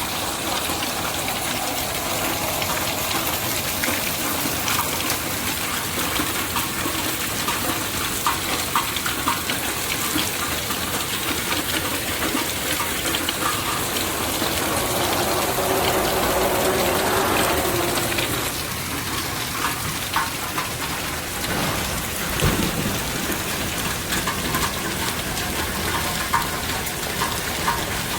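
Steady rain hissing, with scattered drops pattering close by. About fifteen seconds in a louder sound swells up and fades away by about eighteen seconds, and a brief low rumble comes about twenty-two seconds in.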